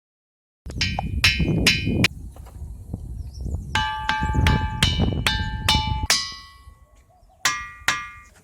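Sonorous ringing rock struck about a dozen times in three quick groups. Each strike gives a bright, bell-like metallic ring, and the pitch changes from strike to strike. A low rumble runs beneath the first two groups.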